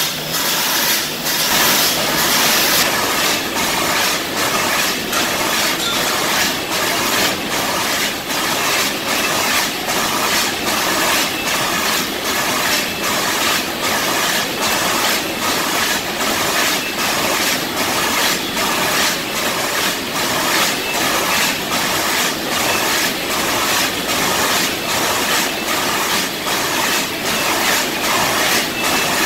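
Automatic stand-up pouch filling and sealing machine running, a steady mechanical clatter with a sharp stroke about twice a second as it indexes the pouches. A hiss of air is heard for the first few seconds.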